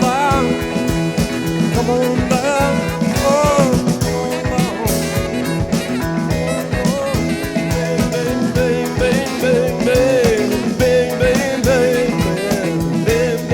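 Westcoast-style soft rock song playing: a wavering lead melody over sustained chords, bass and a steady drum beat.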